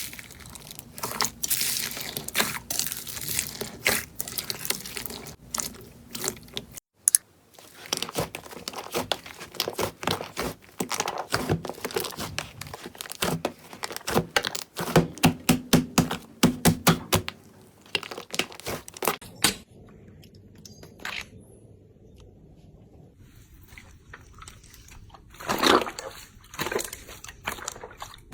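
Slime being squeezed and pressed by hand, giving rapid crackling and popping that come in dense runs with short breaks between them. The crackling fades to quieter handling about two-thirds of the way through, then a louder squelch comes near the end.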